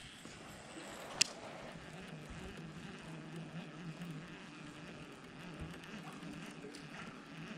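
Fishing reel cranked faintly during a lure retrieve, a low wavering whir, with one sharp click about a second in.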